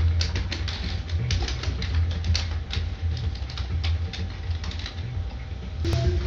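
Typing on a Genius KB-320e membrane keyboard: rapid, irregular key clicks over a steady low hum.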